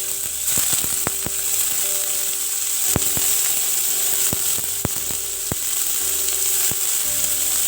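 Paneer pieces frying in hot sunflower oil in a pan, sizzling steadily, with a scatter of sharp clicks and taps.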